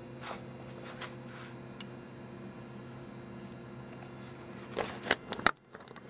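Steady low electrical hum in a quiet room, with faint rustles in the first second or so. About five seconds in come a quick cluster of sharp clicks and knocks, like handling noise, and then the sound briefly drops away.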